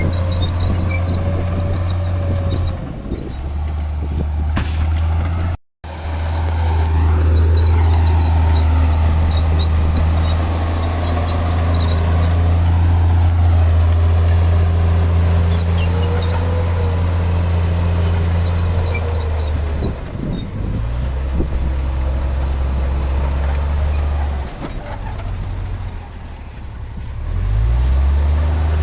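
Large diesel engine of heavy earthmoving machinery running under load, a steady deep hum with a wavering whine above it. The sound cuts out for an instant about six seconds in. The engine drops lower near twenty-five seconds and revs back up near the end.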